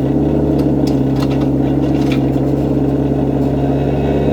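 An engine running steadily at a constant speed, a low even drone, with a few faint ticks over it.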